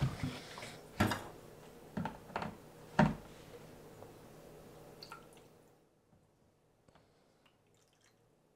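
A small clear plastic tank being handled, with four knocks, the loudest about three seconds in, over a faint trickle of water as distilled water is added; it fades out just before six seconds.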